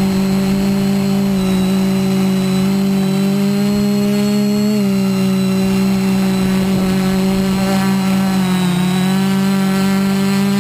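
A 3D-printed quadcopter's brushless motors and propellers in flight, heard from the GoPro mounted on it: a loud, steady hum. Its pitch shifts slightly about halfway through and dips again near the end as the motor speed changes.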